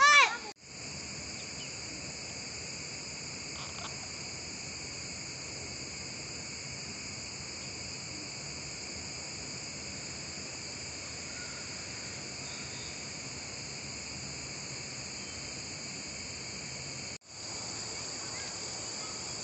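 Steady high-pitched drone of insects chorusing in the trees. A short, loud pitched call sounds right at the start, and the drone drops out for an instant about half a second in and again near the end.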